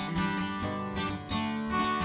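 Background music: strummed acoustic guitar.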